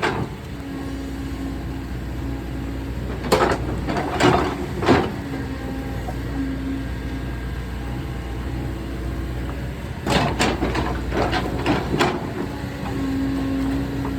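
Kobelco excavator's diesel engine running steadily, with a tone that comes and goes. Sharp clanks and scrapes cluster about three to five seconds in and again about ten to twelve seconds in, as the machine works.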